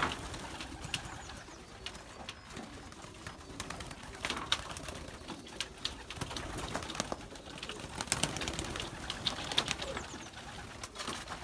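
Domestic racing pigeons cooing, with many short clicks and taps scattered throughout.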